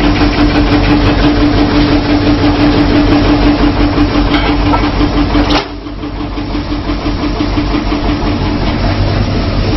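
Sawdust pallet making machinery running loudly, with a steady droning hum over a fast rhythmic clatter. Just past halfway the hum cuts off suddenly and the noise drops, then gradually builds back up.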